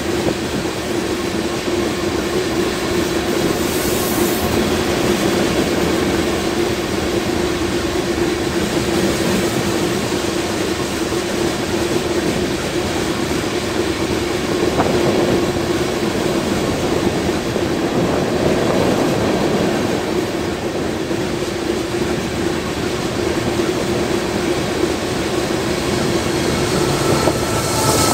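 Union Pacific freight train of covered hopper cars rolling past at speed: a continuous, even rush of wheels and rail noise, with a steady tone running through it.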